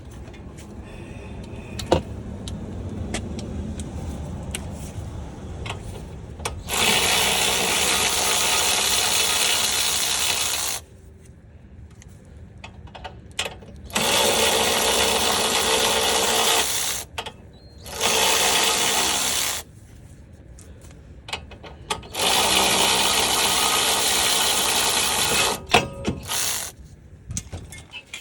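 A power tool runs in four loud, steady bursts of a few seconds each, starting about seven, fourteen, eighteen and twenty-two seconds in, with clicks and handling noise between them. It is backing out the 16 mm bolts that hold the lower control arm.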